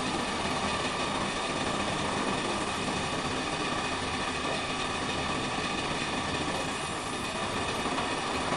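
Fully automatic hemming sewing machine running steadily: a continuous, even mechanical hum.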